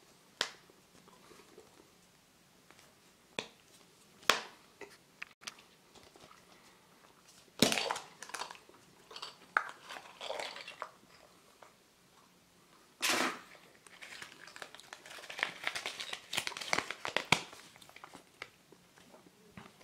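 Hands handling a plastic Kinder surprise capsule and its contents: a few sharp plastic clicks in the first few seconds, then bursts of crinkling as the folded paper instruction leaflet is handled and opened, the loudest in the second half.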